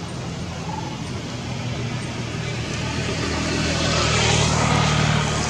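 A motor vehicle passing: a steady engine hum and a rushing hiss that grow louder to a peak about four seconds in, then start to fade.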